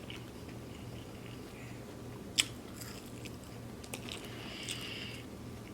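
Close-miked eating: a person chewing and biting into food, with soft wet mouth noises and one sharp click about two and a half seconds in.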